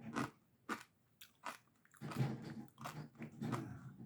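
Someone biting and chewing hard, crunchy fried pork rinds (chicharrones): a few sharp crunches in the first second and a half, then steadier chewing. The crunch sounds like rocks in the mouth.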